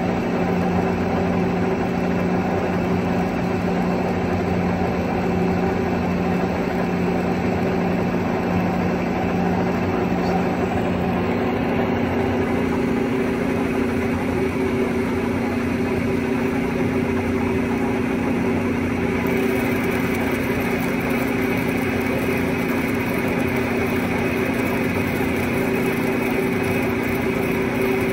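A 1943 American Pacemaker 20x48 engine lathe, driven by a three-phase electric motor, running steadily while turning a metal shaft. The sound is a constant hum of motor and headstock gearing, with several steady tones over a machine hiss.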